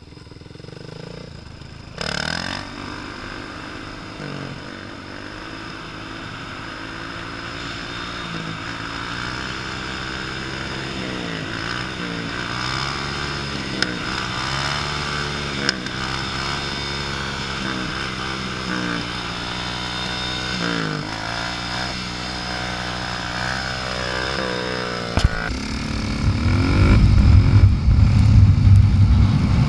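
Supermoto motorcycle engine revving, its pitch rising and falling again and again as the throttle is worked through a wheelie. Near the end a louder, rougher low engine rumble takes over, from the motorcycle carrying the camera.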